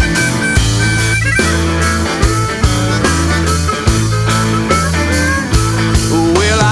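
Instrumental break of a band song: sustained bass notes and melodic lines over drums keeping a steady beat.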